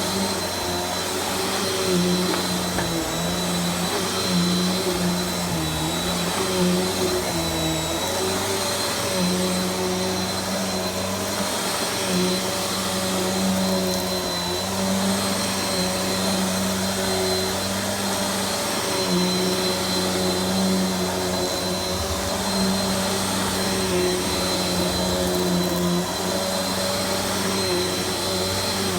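Vacuum cleaner running steadily: a continuous motor hum that wavers slightly in pitch, with a thin high whine above it.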